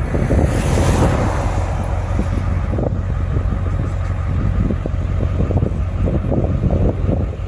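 Car driving along a road: steady engine and road rumble with wind buffeting the microphone. A rush of hiss comes in the first second and then fades.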